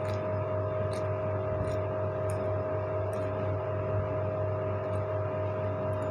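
Steady electrical hum with a constant mid-pitched tone, and a light click about once a second as spring onions are cut into a bowl of batter.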